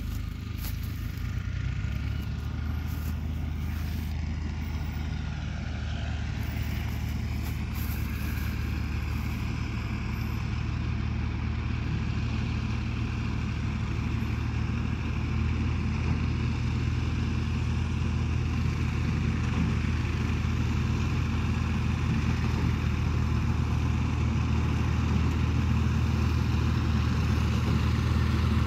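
Tractor engine running steadily as it drives a reaper binder cutting wheat, its drone slowly getting louder as the machine comes closer.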